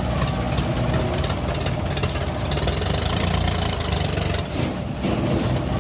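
A JCB 3DX backhoe loader's diesel engine running steadily. It runs louder and brighter for about two seconds in the middle, then drops back.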